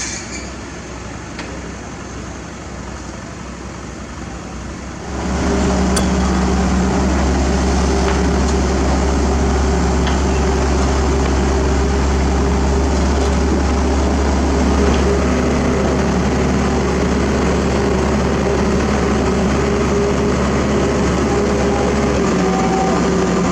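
Heavy diesel engine of construction equipment running. About five seconds in it suddenly gets louder, then holds steady with a deep hum.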